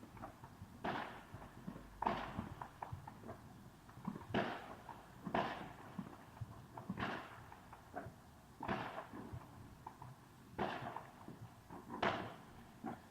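Fireworks going off at a distance: about eight irregularly spaced bangs, each with a short fading tail.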